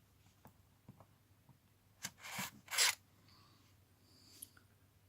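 Socket tools being handled: a few small clicks, then two short scraping noises just after two seconds in, the second the loudest.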